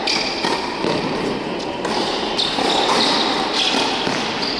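Tennis ball struck by rackets and bouncing on a hard indoor court during a rally: a string of sharp, irregularly spaced pops that echo in the large hall.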